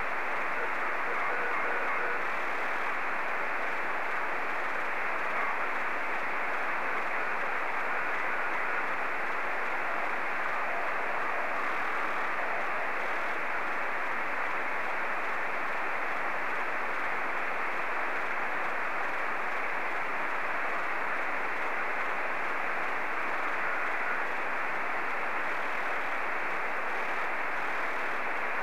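Yaesu FT-897 receiver in SSB mode, tuned to the FO-29 satellite's 70 cm downlink through a home-built quadrifilar helix antenna: steady static hiss, cut off sharply above the narrow voice band of the receiver's filter.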